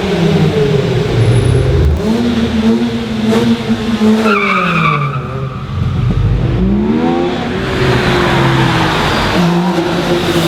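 Performance car engines revving hard as cars pass: one engine note drops away about two to four seconds in, a brief high tyre squeal comes near the middle, then an engine climbs in pitch as it accelerates.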